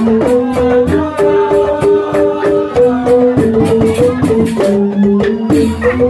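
Balinese rindik ensemble playing: bamboo xylophones struck in quick, changing note patterns, over a fast, even beat of sharp percussive ticks.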